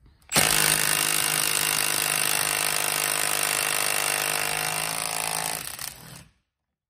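Milwaukee M12 Fuel stubby 3/8-inch brushless cordless impact wrench hammering steadily on a bolt torqued to 200 ft-lb, breaking it loose and taking it off. The impacting runs for about five seconds and trails off near the end.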